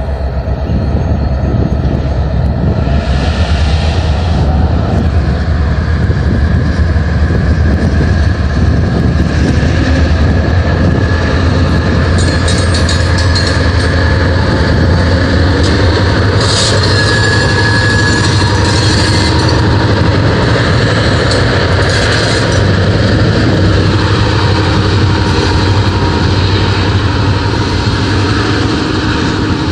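Freight train passing close: two Illinois & Midland EMD GP38 diesel-electric locomotives go by with a steady low engine drone, followed by freight cars rolling past. About twelve seconds in, several short bouts of high metallic squeal and hiss from the wheels come and go.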